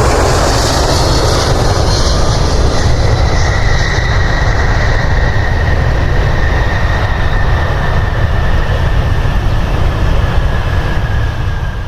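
Jet airliner engines running loud and steady as the aircraft passes close by, with a thin high whine that slowly falls in pitch.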